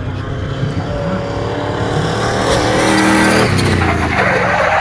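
A car's engine revving hard, its pitch climbing over the middle, then tyres squealing as the car slides through a turn on tarmac near the end.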